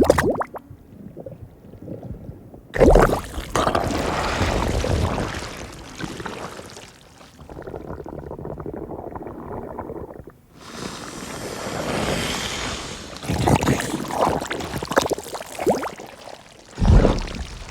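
A run of short, close recordings of wet mud and water in swamp bog holes: squishing, gurgling and splashing. Each clip cuts off abruptly into the next, some steady and some in uneven loud gushes.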